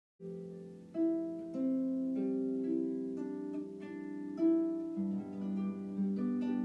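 Instrumental background music, a gentle melody of ringing plucked notes, starting a moment in after a brief silence.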